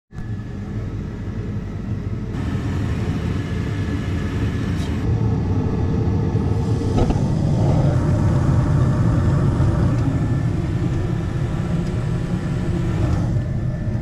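Gas furnace starting up: a steady low mechanical hum with a faint whine that grows louder over the first several seconds, with a click about seven seconds in.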